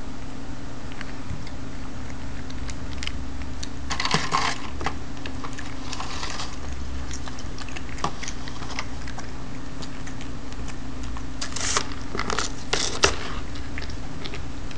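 Cat fishing treats out of a plastic tub of water: small knocks, scrapes and light splashes as its paws and muzzle nudge floating plastic containers, in a few short clusters, over a steady low hum.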